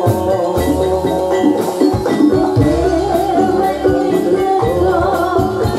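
Javanese gamelan music playing the jathilan dance accompaniment: bronze metallophones ringing a melody over steady drum beats.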